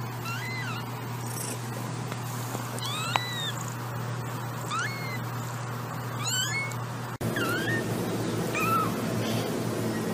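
Very young kittens mewing: short, thin, high-pitched mews that rise and fall, about one every second or so, over a low steady hum.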